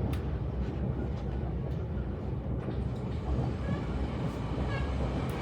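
Steady low rumble of the TranzAlpine train, with scattered faint clicks.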